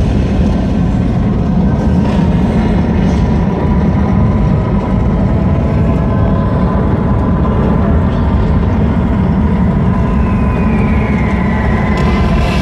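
Wartime sound effects from the light show's soundtrack, played over loudspeakers: a loud, steady, heavy rumble with a held tone running through it, and a whistle falling in pitch near the end.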